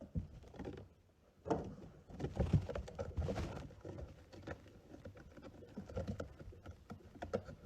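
Irregular soft scuffling, tapping and rustling close to the microphone, from a dog moving about and pawing as it performs a trained fainting response.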